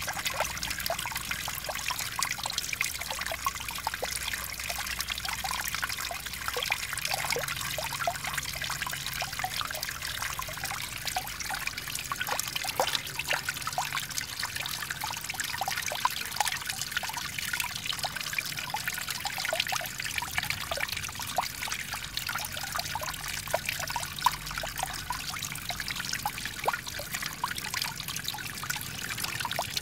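Water trickling and splashing steadily, with many small drips and splashes.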